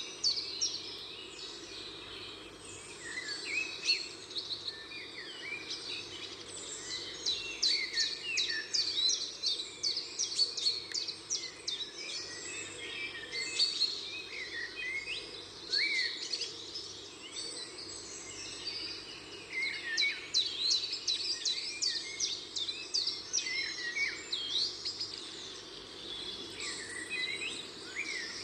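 Many small birds chirping and singing without a break: a dense chatter of quick high chirps and short sweeping notes, over a faint steady low hum.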